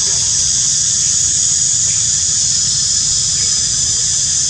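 Steady high-pitched insect drone in forest undergrowth, unbroken throughout, over a low rumble.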